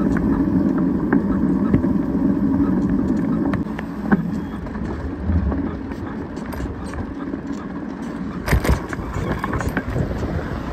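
Riding noise of a bicycle on an asphalt street: a steady rolling and wind rush, louder for the first three and a half seconds, with small rattling clicks throughout and one sharp knock about eight and a half seconds in.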